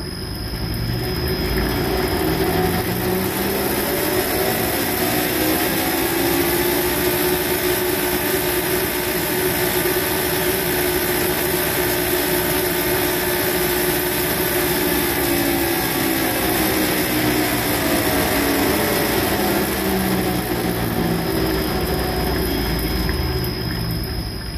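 A G-rotor dry sump oil pump on a flow bench, spun up toward 9,000 RPM with no relief valve. The mechanical whine climbs over the first few seconds, holds steady through the middle, then drops in pitch as the pump spins down near the end.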